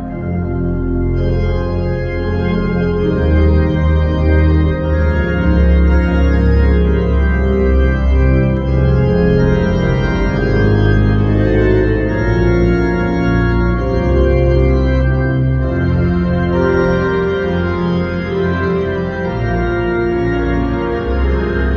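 Church organ playing a slow piece in sustained chords over low pedal bass notes.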